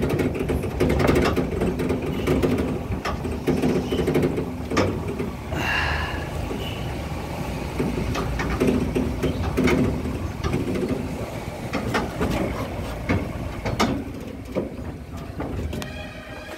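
A vehicle rolling slowly over a rough dirt track, heard from inside: a steady engine hum with frequent knocks and rattles from the body. There is a brief high squeak about six seconds in and a quick run of ticks near the end.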